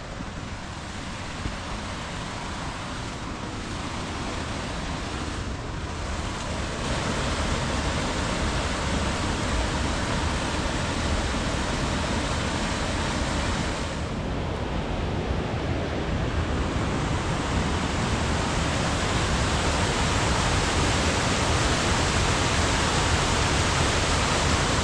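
Waterfall rushing steadily, growing louder in stages as the view nears the falls.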